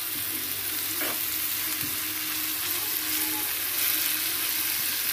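Minced meat (kefta) with chopped sweet pepper, coriander and parsley sizzling steadily as it fries in olive oil in a pan, being stirred, with a faint knock of the utensil on the pan now and then.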